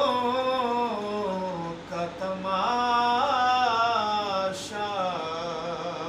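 A man singing an Urdu naat, stretching the words into long, drawn-out notes that slide up and down in pitch with only short breaths between phrases.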